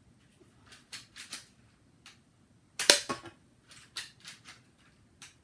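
Lego brick pump shotgun being worked: a series of light plastic clicks, then one loud sharp snap of it firing about three seconds in, followed by more clicks.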